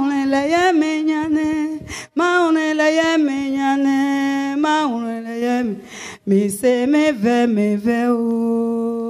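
A single voice singing a slow worship chorus unaccompanied, in long held notes, breaking off briefly twice and moving to lower notes in the second half.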